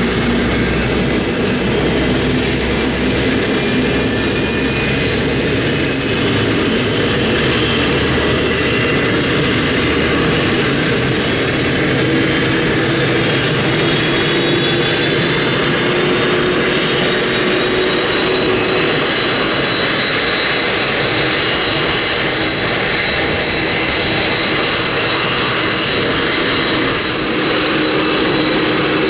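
Boeing 747-400's General Electric CF6 turbofan engines running during pushback: a loud, steady jet noise with a high whine that slowly rises in pitch about halfway through.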